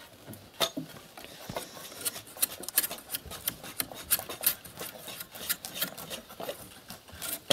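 Hand blades shaving bark off wooden poles: several people at once, giving quick, irregular scraping strokes, several a second.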